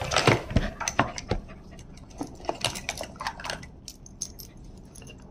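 Metal clip and fittings of a retractable dog leash and harness being handled: quick jingling clicks and clinks, with a few low knocks near the start, thinning out after about three and a half seconds.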